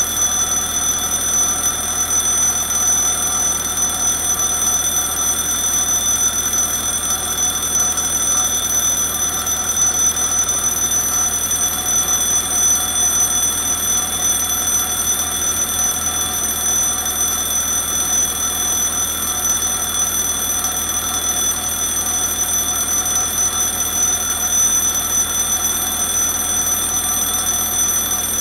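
Railroad level crossing warning bell ringing steadily, sounding while the crossing's red lights flash.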